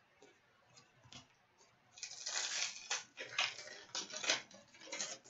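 Trading cards being handled: sliding and flicking against each other and tapped onto a pile. After a nearly quiet start there is a string of light swishes and clicks from about two seconds in.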